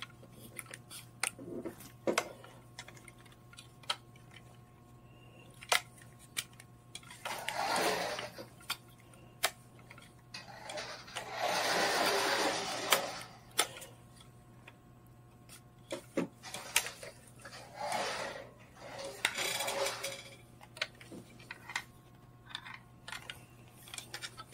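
Toy remote-control buggy's small electric motor and plastic gears running in short bursts of a second or two, three longer bursts and several brief ones, with scattered clicks and knocks as it drives and bumps about.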